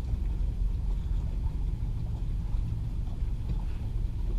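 Wind buffeting the microphone in a steady low rumble, over water rushing along the hull of a Lido 14 sailboat moving under sail.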